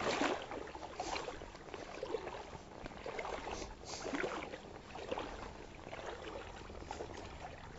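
Water sloshing and splashing in small irregular bursts around a wader-clad angler's legs as he wades through shallow, cold lake water.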